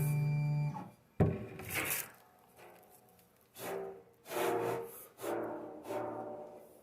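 Peopoly Phenom resin 3D printer's motor humming steadily as the build plate is raised, stopping about a second in. Then several short scraping and rubbing sounds follow with pauses between them.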